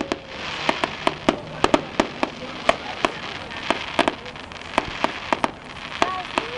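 Fireworks display: an irregular, rapid string of sharp bangs from bursting shells, with crackling between them.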